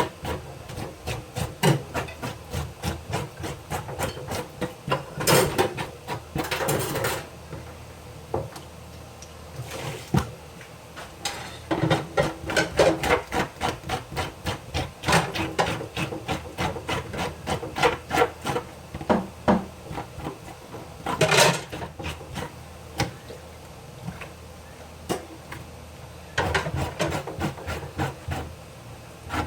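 Rapid, uneven knocking and rubbing on wood, about four knocks a second, broken by a few longer scraping rushes.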